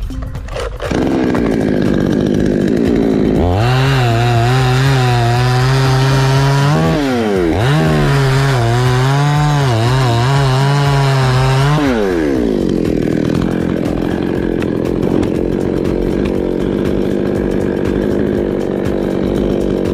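Chainsaw cutting a coconut tree: it comes in about a second in, runs up to high revs for about eight seconds with a brief dip partway, then drops back to a lower running speed.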